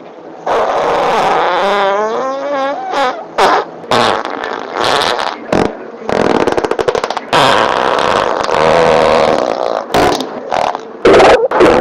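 A string of human farts cut one after another. A long wavering fart in the first few seconds is followed by short blasts, a fast fluttering one about six seconds in, and longer raspy ones near the end.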